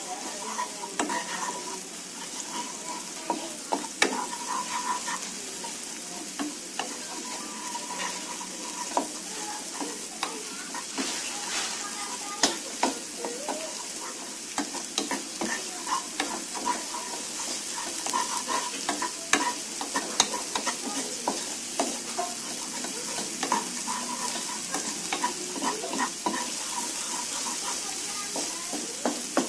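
Ground spice paste sizzling in hot oil in a non-stick frying pan while a wooden spatula stirs it, with many small scrapes and taps of the spatula on the pan over a steady hiss. The paste is being sautéed until fragrant.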